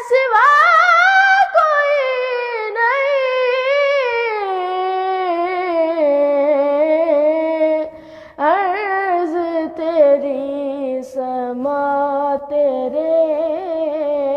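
A boy's solo voice singing an Urdu naat in long, drawn-out phrases with ornamented turns, with no instruments heard. There is a short pause for breath about eight seconds in.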